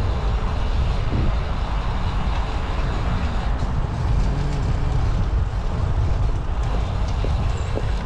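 Steady low rumble of wind on the microphone and bicycle tyres rolling along the path during a ride.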